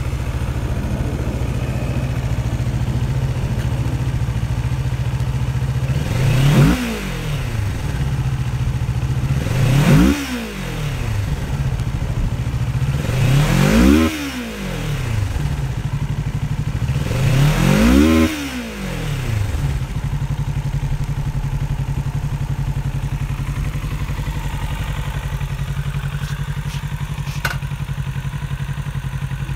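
2019 Kawasaki Z650's parallel-twin engine idling in neutral, revved four times about four seconds apart. Each rev rises and falls back to idle, then the engine settles to a steady idle. A short click comes near the end.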